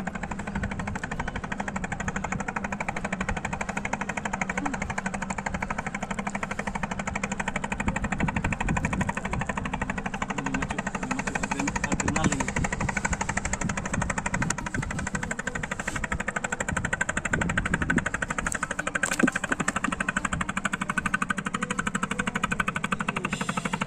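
A small engine running steadily with a fast, even chugging beat that never stops or changes.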